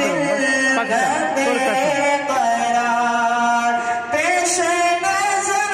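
A man singing an Urdu naat solo into a microphone, with gliding ornaments, then one long held note, and a new phrase beginning about four seconds in.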